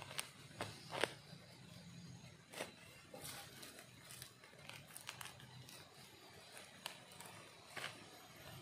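Dry grass and soil rustling and crackling as termite mushrooms are dug out of a termite mound and pulled up by hand. Scattered sharp snaps and clicks run through it, the loudest about a second in.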